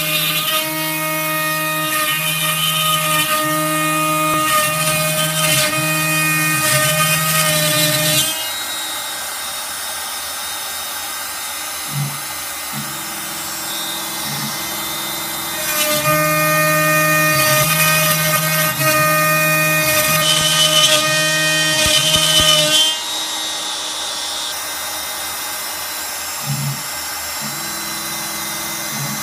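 X-Carve CNC router cutting a roughing pass in mahogany: a DeWalt router spinning at speed 3 with a steady whine, and the machine's stepper motors humming in short back-and-forth moves, changing tone about every half second. The cut grows louder and whinier for the first eight seconds or so and again for several seconds past the middle, as the bit bites harder into the wood.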